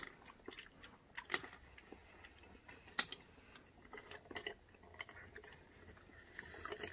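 Quiet eating sounds of people eating seafood ramen: chewing and slurping noodles, with scattered small clicks of chopsticks on the wok and dishes. The sharpest click comes about three seconds in.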